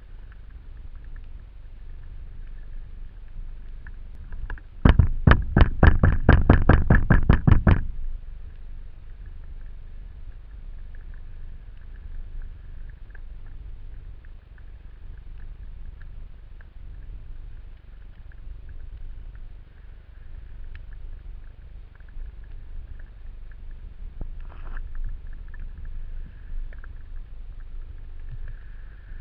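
Underwater ambience on an action camera's housing: a steady low rumble of water with a faint hiss. About five seconds in comes a loud run of rapid, evenly spaced clicks, about five a second, lasting some three seconds.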